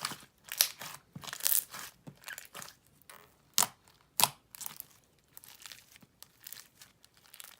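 Slime with foam beads being squished and stretched by hand, giving irregular crackles and sharp pops, the two loudest pops a little past the middle.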